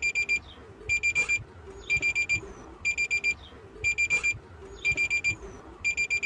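Electronic alarm beeping: a high-pitched beep in rapid groups of four, each group about half a second long, repeating about once a second, like a digital alarm clock.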